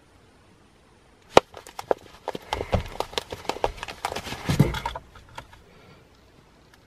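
Handling noise: a sharp click about a second and a half in, then a few seconds of irregular clicks, taps and rustling as a hand picks up a phone lying on a trouser-covered lap, then it goes quiet again.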